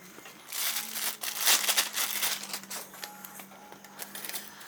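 Crinkling and rustling in short, irregular bursts, like plastic or paper being handled, over a faint steady hum.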